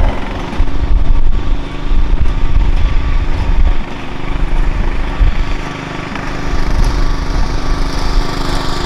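Racing ride-on lawnmower's engine running steadily as the mower drives along the pavement, dipping in loudness for a couple of seconds midway and rising again.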